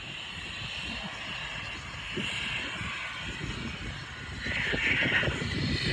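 Embraer Phenom 300 business jet's twin turbofan engines running with a steady whine as it taxis and turns onto the runway, growing louder about four and a half seconds in.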